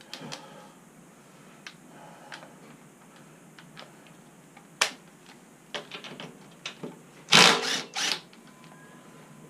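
Hand tools on the front axle's castle nut, loosened with a 19 mm wrench: scattered metal clicks and clinks, with two louder short bursts about three-quarters of the way through.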